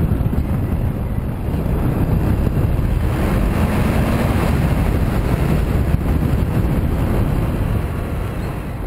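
Wind buffeting the microphone of a motorcycle on the move, a steady heavy rumble with the bike's engine and road noise under it; it eases off a little near the end.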